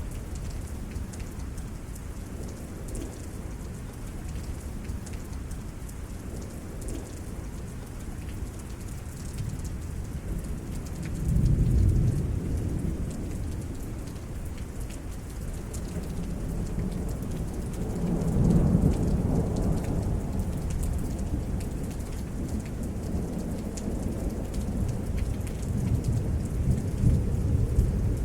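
Steady rain falling during a thunderstorm, with rolling thunder. A loud rumble comes about 11 seconds in, a longer one around 18 seconds, and more rumbling builds near the end.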